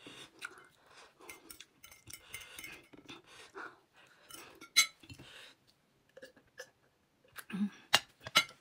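Close-miked eating sounds: chewing a mouthful of noodles, with small clicks of a metal fork on a ceramic plate. Several sharp glass clinks come near the end as a glass jar is picked up to drink.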